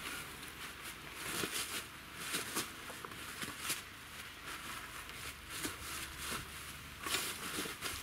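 Footsteps crunching and rustling in dry fallen leaves, with short irregular crackles, along with tent canvas being handled as a pole is set.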